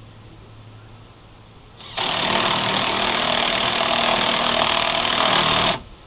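Red cordless power driver running steadily on a snowblower wheel bolt, starting about two seconds in and stopping abruptly after about four seconds.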